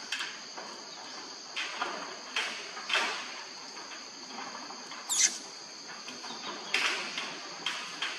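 Steady high insect chirring, with irregular short scratches and taps, and a single high squeak that falls in pitch about five seconds in.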